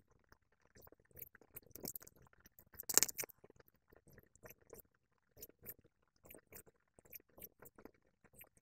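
Craft knife cutting thin strips of coloured paper along a steel ruler, a run of short scratchy strokes, with paper sheets rustling as they are handled; the loudest rustle comes about three seconds in.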